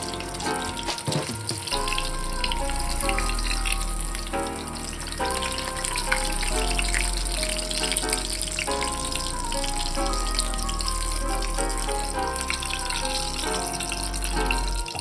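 Hot oil sizzling and crackling around a panko-breaded pork cutlet as it fries in a pan, under background music with a repeating melody.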